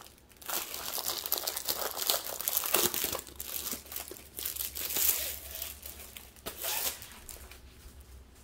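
Clear plastic wrapping crinkling and rustling as it is handled and pulled off a rolled diamond-painting canvas, busiest in the first half and fading near the end.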